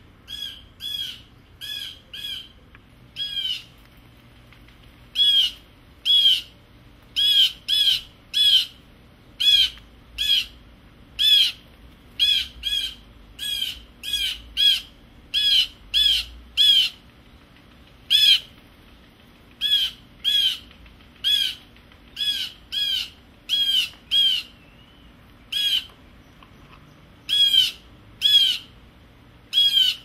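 Blue jay giving short harsh jeer calls over and over, often two or three in quick succession with brief gaps between groups. These are scolding calls aimed at a cat.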